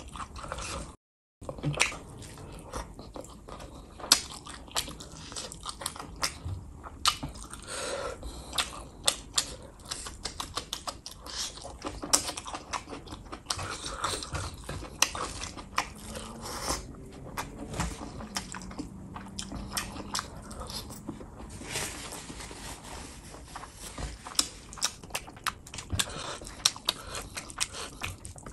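Close-miked wet chewing and lip smacking, with fingers squishing rice and gravy into balls: a stream of sharp clicks and smacks. There is a brief dropout about a second in.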